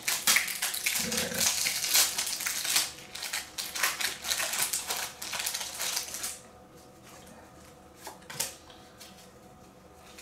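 Foil wrapper of a Pokémon trading card booster pack crinkling and tearing as it is pulled open by hand: dense crackling that stops about six seconds in. After that, a couple of faint clicks and rustles as the stack of cards is handled.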